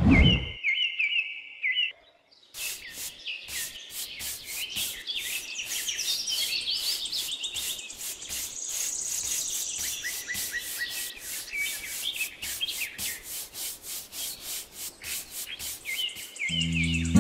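Bristle paintbrush scrubbing thick paint onto a rough cement surface in quick, even strokes, about three a second, with birds chirping throughout. Music comes in near the end.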